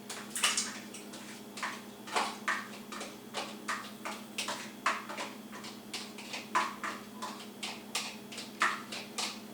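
Repeated short metallic scraping clicks on a tin can of tomatoes, about two to three a second, with a faint steady hum underneath.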